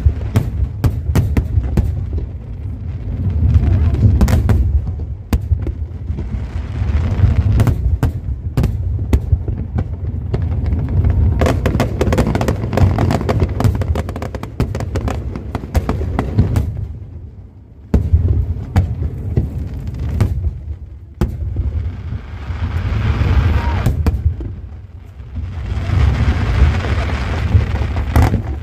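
Fireworks display: a continuous run of booming bursts and sharp bangs with crackling that swells and fades in waves, dipping briefly about halfway through.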